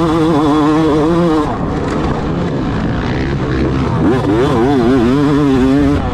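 Yamaha YZ250 single-cylinder two-stroke motocross engine revving hard, its pitch wavering rapidly up and down as the throttle is worked. It eases off about a second and a half in and pulls hard again near the end.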